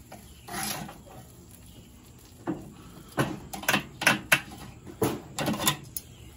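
Metal tongs clinking and scraping against a charcoal grill's cooking grate as slabs of baby back ribs are lifted and shifted: one clink near the start, then a quick run of sharp clinks and scrapes in the second half.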